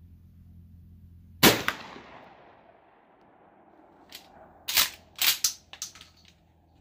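A single 12 gauge slug shot from a Mossberg 500 pump shotgun: one sharp report about a second and a half in, its echo dying away over about a second and a half. A few seconds later comes a quick run of sharp clacks.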